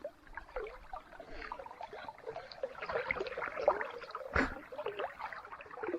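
River water gurgling and lapping around a small boat drifting in a strong current, a run of small irregular splashy blips, with one sharp tap about four and a half seconds in.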